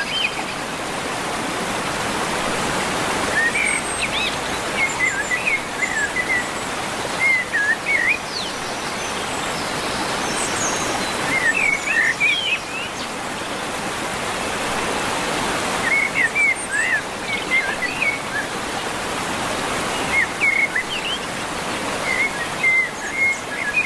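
Budgerigar chirping in short bouts every few seconds over a steady rush of running water.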